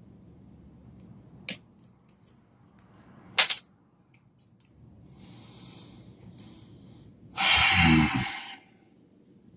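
Handling of a lock and lock picks: a few sharp metallic clicks and taps, then a loud rushing burst lasting about a second near the end.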